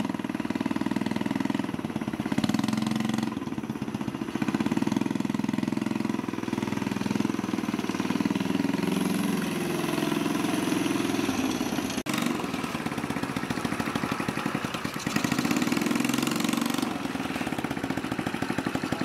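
Small motorcycle engine of a custom fat-tyre Honda Chaly running and being revved, its pitch rising and falling. It breaks off abruptly about twelve seconds in, then runs on.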